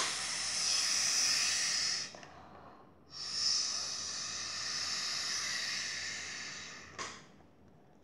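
Air blown hard through a plastic drinking straw into crunchy bead slime: two long hissing blows, about two and four seconds, with a short pause between, and a small click near the end. The blowing is not making the slime puff up.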